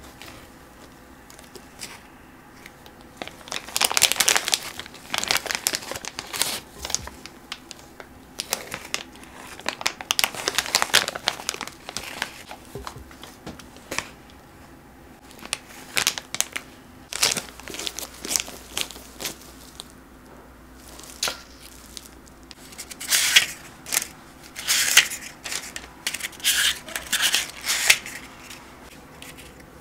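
A clear plastic bag crinkling in irregular bursts as thick batter is scraped into it with a spatula from a glass bowl. Near the end come denser bursts of papery crinkling as paper muffin cups are pulled apart.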